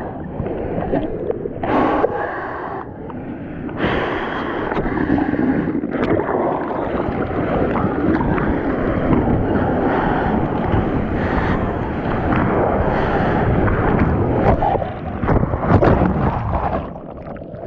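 Seawater rushing and splashing over a surfboard-mounted action camera as the board moves through whitewater, louder and steady from a few seconds in. Near the end it turns choppy, with gurgling splashes as the camera is washed over.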